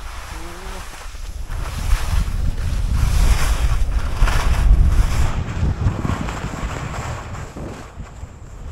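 Wind buffeting the microphone: a gusty low rumble that builds to its strongest about halfway through, then eases off.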